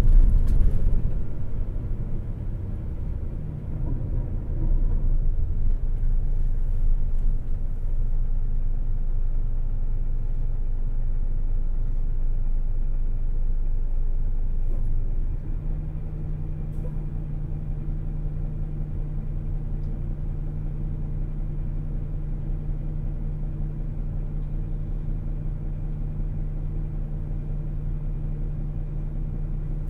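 Hino Selega coach's diesel engine (a 9-litre A09C inline-six) and road noise heard from inside the cabin while the bus drives. About halfway through the running noise drops suddenly and the engine settles to a steady low hum, as at idle.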